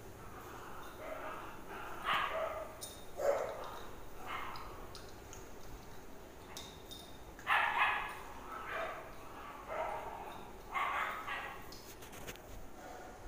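Dogs barking and yipping in short calls, about a dozen spread through, the loudest pair about two-thirds of the way in.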